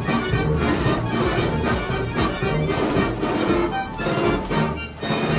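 Belt-driven mechanical pipe organ playing a tune, loud, with a steady rhythmic beat.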